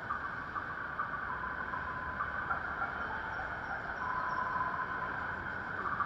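Steady city street ambience of traffic driving through a busy crossing in the rain, cars and trucks passing over the wet road with a constant hiss.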